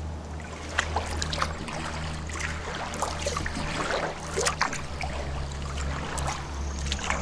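Kayak paddle strokes in a swift creek: irregular splashes and drips of water off the blades, over a steady low hum.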